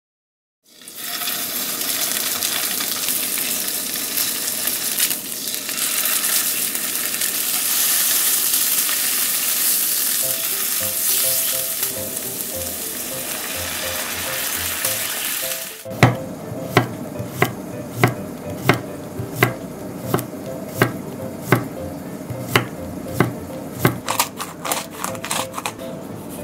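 Salmon fillets sizzling in oil in a frying pan, a steady hiss. About sixteen seconds in, it changes to about fourteen evenly spaced knife chops on a wooden cutting board, a little more than one a second.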